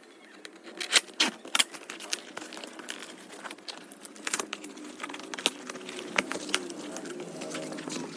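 Packaging being handled and unwrapped: an irregular run of sharp clicks and crinkles, loudest about a second in.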